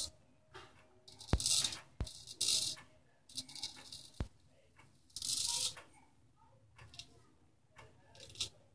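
Boker King Cutter straight razor scraping through lathered stubble in short strokes, about five rasping strokes with pauses between. A few sharp clicks fall among them.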